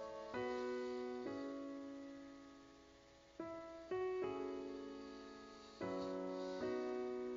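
Soft background piano music: slow chords and single notes struck about every second and left to ring out and fade.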